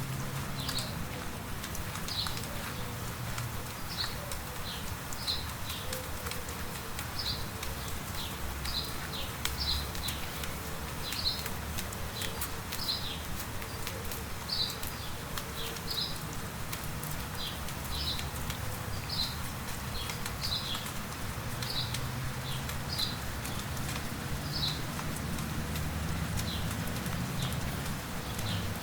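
A songbird calling over and over, short high chirps about once a second, with light rain pattering.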